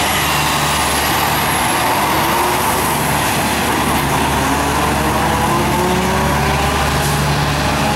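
Two diesel dump trucks accelerating hard from a standing start in a drag race. Their engines run at full throttle, the pitch climbing, dropping back and climbing again several times as they pull away.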